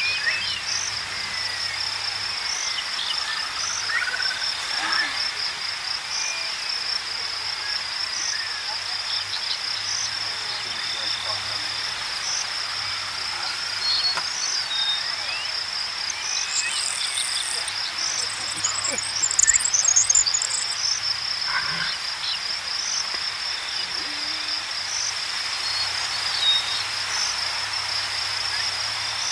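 Steady, high-pitched insect chirring, cricket-like and pulsing regularly, with scattered bird chirps over it, including a brief cluster of high chirps about two-thirds of the way in.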